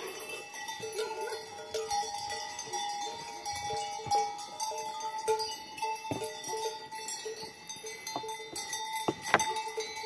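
Cowbells on grazing cattle clanking irregularly, short rings at steady pitches coming on and off. A few sharp knocks in the second half.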